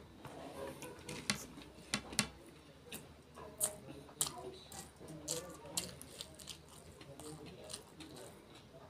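Close-miked mouth sounds of someone eating rice and curry by hand: wet chewing and lip smacking, with irregular sharp clicks every half second or so, and fingers squishing rice on the plate.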